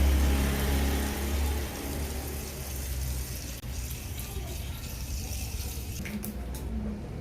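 Water running from a tap for handwashing, with a low steady hum; both die down after about three seconds, and a few light clicks follow near the end.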